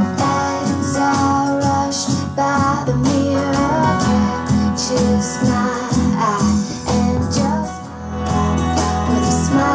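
A song with singing and guitar played back from cassette on an NAD 6155 tape deck with Dolby C noise reduction, as a test recording after repair.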